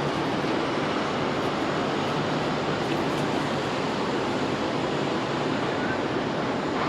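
Steady jet noise from an Airbus A330-343's Rolls-Royce Trent 700 engines, an even rush with no distinct tones, as the airliner rolls out on the runway after landing.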